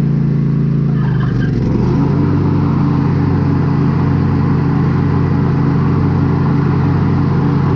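Craftsman T240 riding mower engine running steadily; about a second in its note shifts as the throttle lever is moved, with a few light clicks, then it settles into a new steady pitch.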